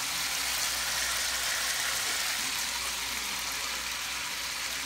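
Pork sizzling steadily in a pan of caramelizing soy sauce and sugar, an even hiss with a low steady hum underneath.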